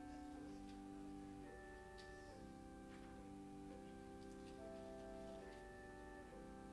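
Faint keyboard music in slow, held chords that change every second or two.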